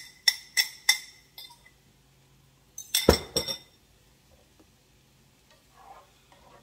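Kitchen utensil clinking against cookware: a few sharp, ringing clinks in the first second, then a heavier knock with a quick cluster of clinks about three seconds in.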